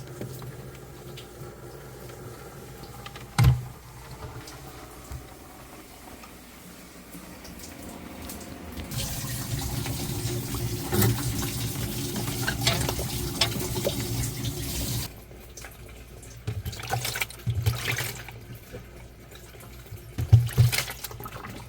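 Water running into a refrigerator's ice-blocked drain hole to melt the ice. The flow runs steadily for about six seconds in the middle and cuts off suddenly. A sharp knock comes a few seconds in, and more knocks come near the end.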